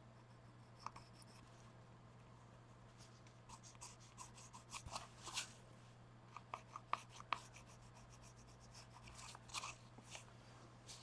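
Faint scratching and small taps of colouring on a paper art card, in a few short clusters, over a low steady hum.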